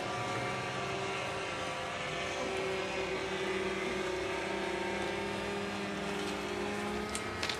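Radio-controlled model floatplane in flight, its small engine and propeller giving a steady drone at a nearly constant pitch.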